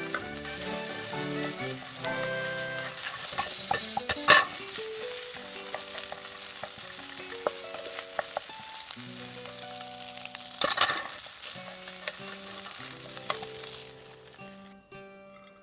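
Kimchi fried rice sizzling in a frying pan while it is stirred, with two loud knocks of the utensil on the pan, about four and eleven seconds in. The sizzling stops near the end, over background music.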